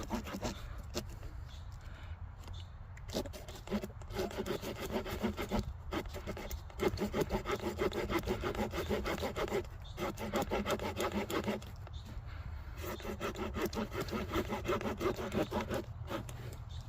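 The small folding saw blade of a multitool cutting through a soaking-wet stick with quick back-and-forth strokes, in several runs broken by short pauses.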